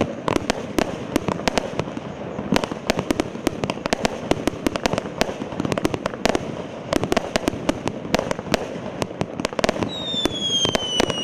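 A 100-shot fireworks cake fires straight up in rapid succession, giving a dense run of sharp cracks and pops, several a second, as its gold rain and peony shells launch and break. Near the end, a high whistle falling in pitch joins the cracks.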